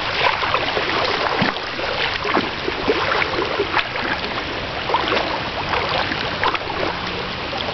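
Turbulent floodwater rushing steadily, with many small splashes through it.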